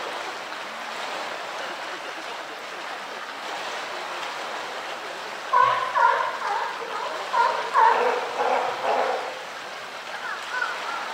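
Steady rushing and lapping of water in a polar bear's pool. From about halfway through, a few seconds of louder voices break in over it.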